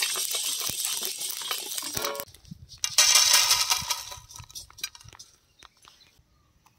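Whole spices (coriander seeds, black peppercorns, cumin) rattling and scraping as a wooden spatula stirs them in a dry metal pan. About three seconds in they are poured out onto a metal plate in a brief, loud rush of clinking seeds that trails off into scattered ticks.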